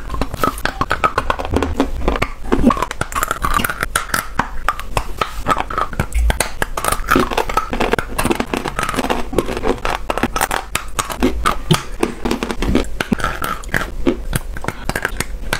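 Close-up crunching and chewing of hard, crumbly chunks, a continuous run of crisp crackles as the pieces are bitten and ground between the teeth.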